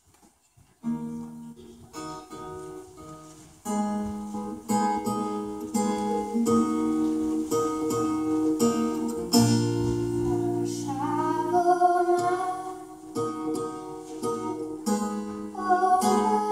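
Acoustic guitar strummed in chords, starting about a second in, then a young girl's voice begins singing a song over it about ten seconds in.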